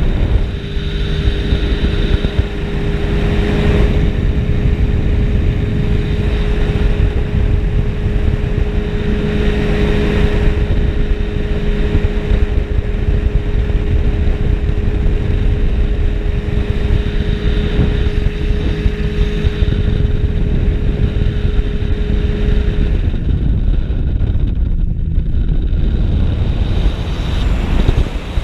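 Ultralight aircraft engine and propeller droning at a steady pitch in flight, under heavy wind rumble on the microphone. Some twenty seconds in the engine's tone drops away, leaving only the rush of wind.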